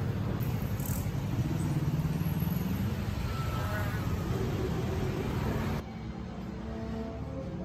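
City street traffic, with cars and a truck passing close by and their engines running, one swelling briefly about two seconds in. About six seconds in this cuts to soft background music.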